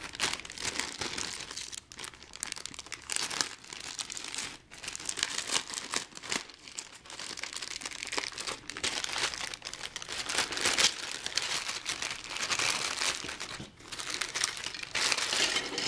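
Clear plastic parts bag crinkling steadily as it is handled, cut open and plastic model kit parts trees are pulled out of it.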